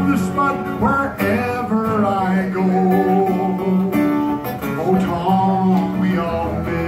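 Acoustic guitar played live on stage, notes ringing continuously as part of a song.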